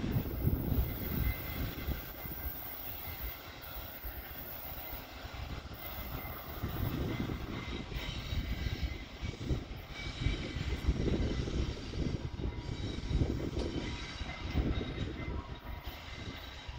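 VIA Rail passenger train's diesel locomotive running as the train moves off round a curve. It is a low, uneven engine rumble that swells and fades.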